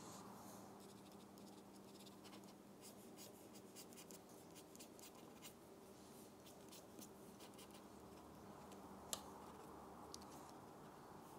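Faint scratching and ticking of a Pilot Parallel fountain pen's flat nib making strokes on paper, thickest in the first half, with one sharper tick about nine seconds in.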